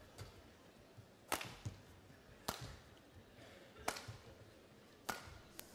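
Badminton rackets hitting a shuttlecock back and forth, four sharp strikes about a second and a quarter apart.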